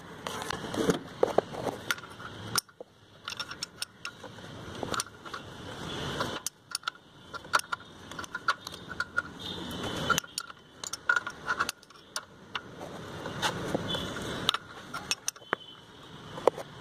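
Irregular metal clicks and clinks of a spanner on the camshaft pulley bolt of a Maruti 800 engine as the engine is turned over by hand, with scraping and handling noise in between. The engine is being rotated to bring cylinder 1 back to its timing mark for tappet adjustment.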